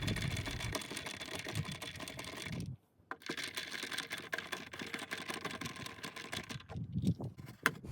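Phillips screwdriver loosening plastic push-in retaining clips, a run of rapid small clicks. The clicks break off in a short silence about three seconds in.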